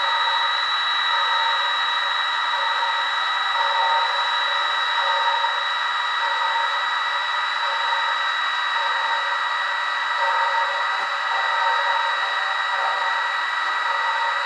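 Small electric drive motor and geared reduction of a model railway turntable running with a steady high-pitched whine of constant pitch.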